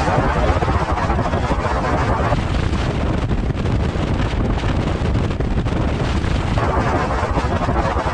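Car driving through floodwater: a steady rush of engine, tyre and water noise, heavier in the first two seconds or so and again from about six and a half seconds in.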